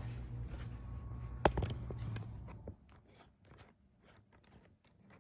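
A steady low electrical hum that stops about two and a half seconds in, with a sharp click about a second and a half in and light clicks and taps after the hum stops.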